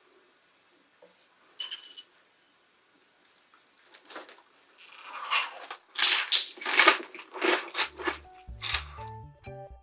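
A short metallic clink, then a run of scraping strokes of a hand tool working raw potato. Background music comes in near the end.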